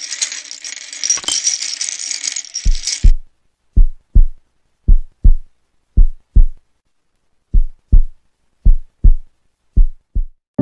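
A pile of plastic LEGO bricks clattering for about three seconds. Then deep thumps drop in pitch, coming in pairs like a heartbeat, about one pair a second, with one longer gap near the middle.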